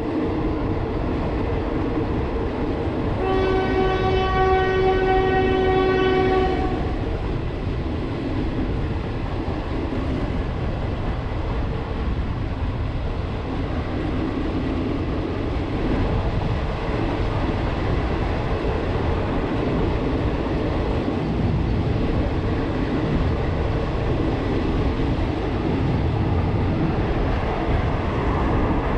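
Passenger train running on the rails with a steady rumble, and one long horn blast of about three and a half seconds starting about three seconds in.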